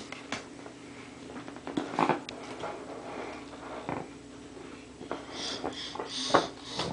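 A baby's soft breathy sniffs and small grunts, with a few louder breathy sounds near the end, over a faint steady hum.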